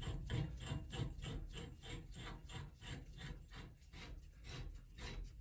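Iron pipe tee being screwed by hand onto the threaded end of a steam pipe, the metal threads rasping in short, even strokes about four times a second.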